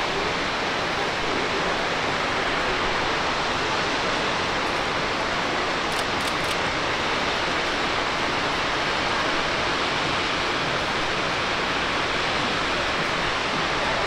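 Fukuroda Falls, a broad multi-tiered waterfall cascading over rock: a steady, even roar of falling water.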